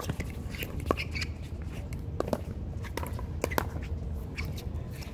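Pickleball rally: paddles hitting the hard plastic ball back and forth, a string of sharp pops, about eight of them at irregular intervals.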